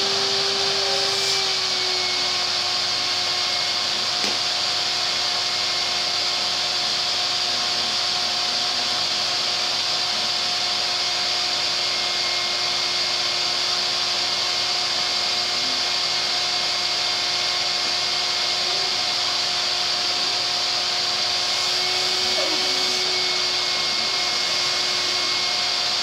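Household vacuum cleaner running steadily through its hose, a constant whine over a hiss. Its pitch drops slightly a second or two in and rises back near the end.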